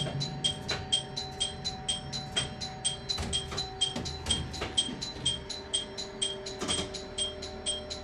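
Railway level-crossing warning bell ringing steadily, even dings about three a second, over the low hum of the stopped train, with a few knocks in the middle.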